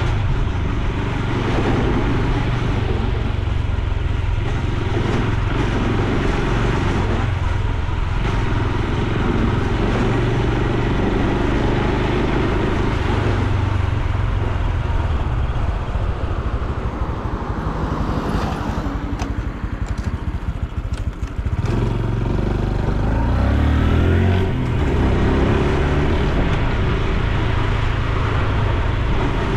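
Honda Super Cub C125's air-cooled single-cylinder engine running on the road. It eases off about two-thirds of the way through, then picks up again with a rising pitch.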